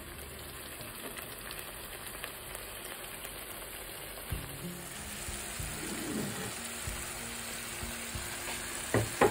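Thick masala paste frying in oil in a non-stick pan: a steady sizzle as the spices are cooked down.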